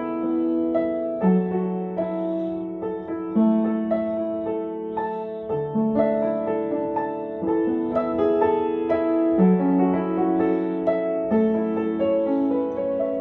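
Piano music: a slow melody of held notes, with new chords and notes struck about once a second.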